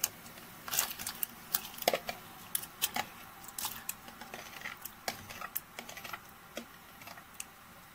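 Boiled mushrooms tipped from a plastic bowl into a pot of hot marinade: a run of irregular small plops, splashes and taps, most of them in the first three seconds and thinning out toward the end.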